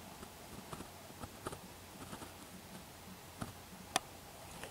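A ringtail (cacomixtle) moving and feeding in a fig tree: scattered faint clicks and rustles of branches and leaves, with one sharper click about four seconds in.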